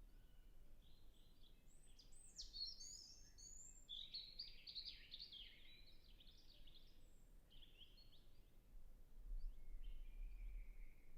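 European robin singing faintly: one long phrase of rapid, high, varied notes with quick falling sweeps, then a few softer notes. A low wind rumble runs underneath and swells near the end.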